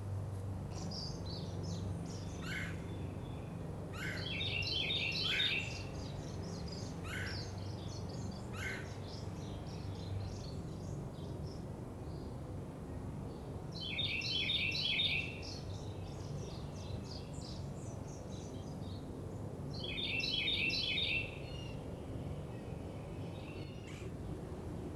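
Wild songbirds singing: one bird repeats a fast, trilled phrase about a second and a half long three times, with scattered short chirps in the first half. A low steady hum runs under the first ten seconds, over a constant outdoor background noise.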